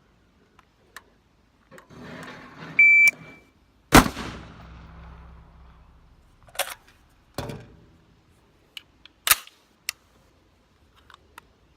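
A shot timer beeps once, and about a second later an AR-15 rifle fires a shot with a long echoing tail. A few more sharp cracks follow over the next several seconds.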